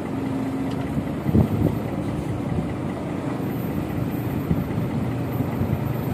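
Steady low engine rumble, with a few louder knocks about a second and a half in.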